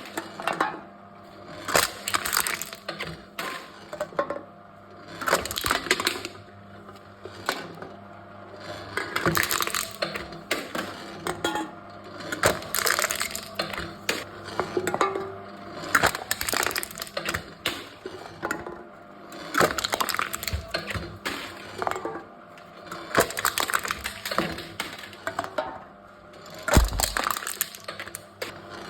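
Aluminium drink cans being crushed one after another by a crushing machine: bursts of crackling, crumpling metal about every three to four seconds, over a steady low hum.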